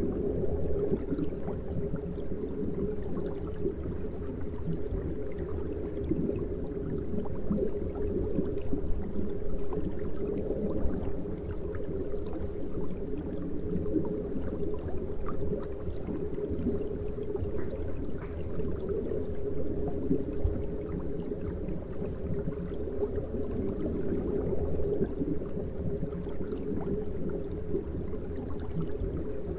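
Steady low water-and-air noise from running aquarium sponge filters and air pumps, with faint scattered ticks of bubbles.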